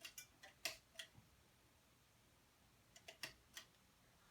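Near silence with a few light clicks: a cluster in the first second and another about three seconds in.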